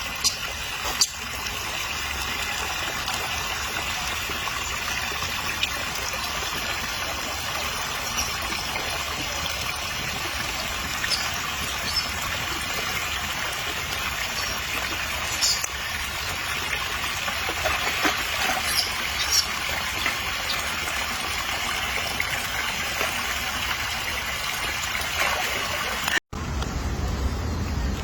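Steady rushing noise like running water, with a few faint clicks; it breaks off abruptly near the end.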